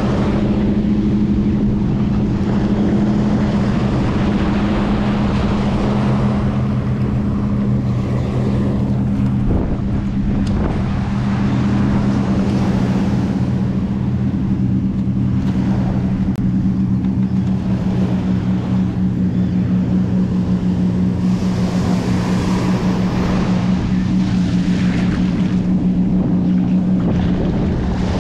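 A steady, unchanging low engine drone, like a motor running, over wind on the microphone and the wash of surf.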